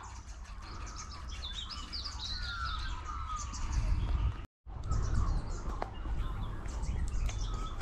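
Wild birds chirping and calling in quick, high, gliding notes over a steady low rumble. The sound cuts out completely for a moment a little past halfway.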